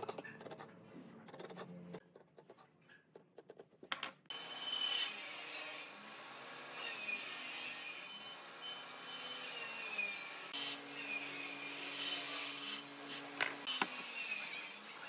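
Pencil and marking tools scratching and rubbing on a pine board as lines are marked out. A few light clicks come first, then a dense scratching sound starts suddenly about four seconds in and goes on steadily.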